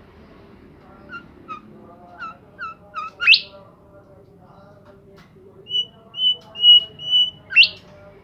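A songbird singing in short phrases. A run of quick chirps builds to a loud rising whistle, then a string of steady high whistle notes ends in another sharp rising sweep near the end.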